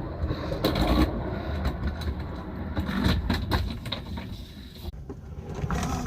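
Irregular knocks and scraping over a steady low rumble: a person clambering and squeezing through a tight space to reach a furnace.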